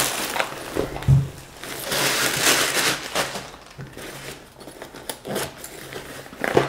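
Packaging rustling and crinkling while a plastic tool carrying case is handled and unpacked, with one sharp thump about a second in and scattered small clicks.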